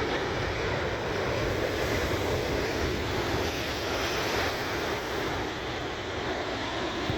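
Rough ocean surf in a storm: a steady roar of breaking waves, with wind on the microphone.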